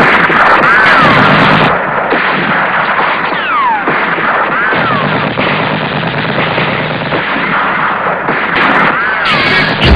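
Battle sound effects: continuous gunfire and machine-gun fire, with four short whistling sounds that rise and fall in pitch.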